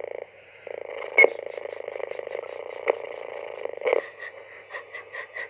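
AM radio receiver hissing and crackling with static and a faint steady whistle as it is tuned onto the weak signal of a kit-built AM transmitter. There are a few sharp clicks, and near the end a fast rhythmic ticking.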